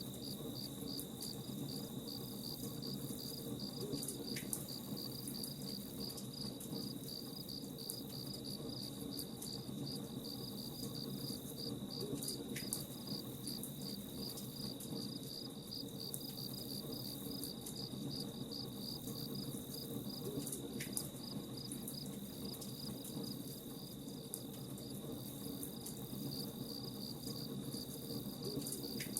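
Crickets chirping in a steady, fast-pulsing trill over a campfire's soft crackle and low rumble.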